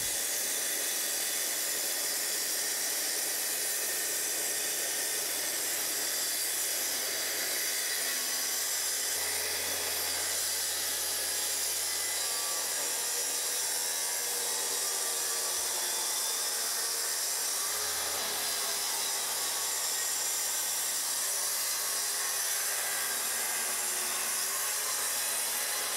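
Festool plunge-cut track saw running steadily along its guide rail, cutting straight across the crooked ends of hardwood floorboards.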